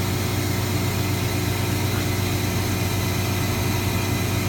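Truck engine idling steadily with the power take-off engaged to drive the lorry crane's hydraulic pump.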